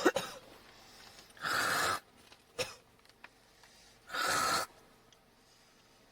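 A woman hawking phlegm: a sharp cough-like burst at the very start, then two harsh, breathy throat noises of about half a second each, a few seconds apart.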